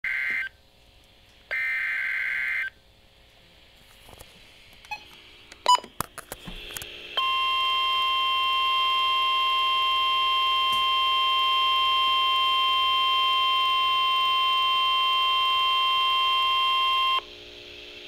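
A Midland weather radio's speaker playing a NOAA Weather Radio emergency alert. It starts with the end of the buzzing EAS data bursts (two short bursts), then a few clicks, then the steady 1050 Hz warning tone for about ten seconds. The tone cuts off about a second before the end, signalling that a warning message follows.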